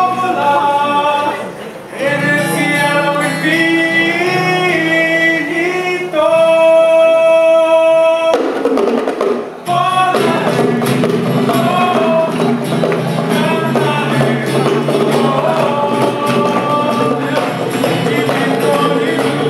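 Live band music: a male voice singing over acoustic guitars, holding one long note about six seconds in. The music breaks off briefly and comes back fuller, with bongos playing along.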